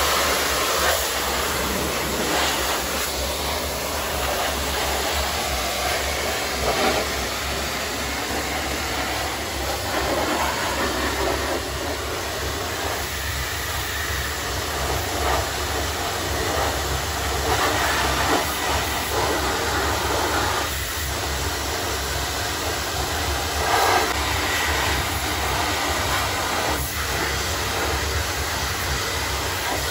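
Hot-water pressure washer jet hissing as it blasts the metal engine and chassis of an old tractor, surging briefly now and then as the jet moves, over a steady low hum.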